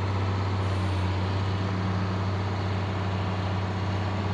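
A steady low engine drone, running evenly without change.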